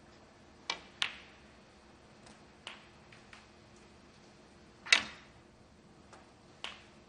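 Sharp clicks of snooker balls: the cue tip striking the cue ball and balls knocking together, a handful of single clicks spread apart, the loudest about five seconds in.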